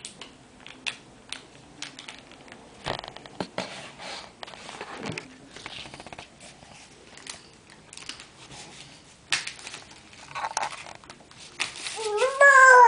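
Toddlers' hands patting and smearing wet finger paint on paper and paper plates: scattered soft taps and smacks at an uneven pace. Near the end a toddler starts a wavering, whiny cry.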